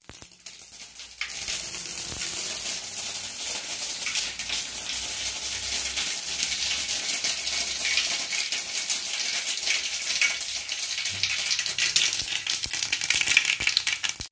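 Tempering seeds sizzling and crackling in hot oil in a kadai. The sound builds about a second in to a dense, steady spitter of fine pops.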